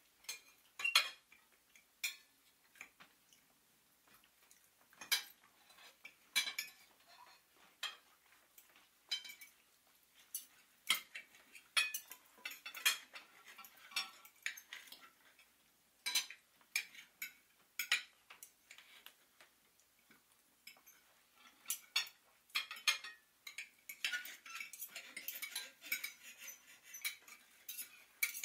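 Light clicks and clinks at irregular intervals, sometimes several close together, growing denser about four seconds before the end.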